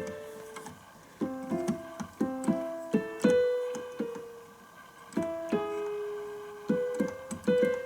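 Yamaha PSR-EW310 portable keyboard playing its piano voice: a short phrase of struck notes, some together, each ringing and fading away. There is a lull after the first note and another around four to five seconds in.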